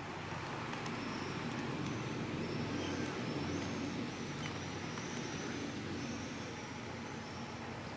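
Street traffic noise: a steady rumble as a vehicle passes, loudest a few seconds in. A faint, high chirping repeats above it.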